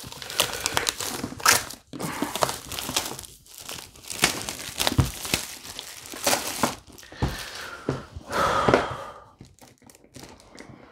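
Plastic shrink wrap on a board game box crinkling and tearing as it is pulled off by hand, in irregular bursts of crackling.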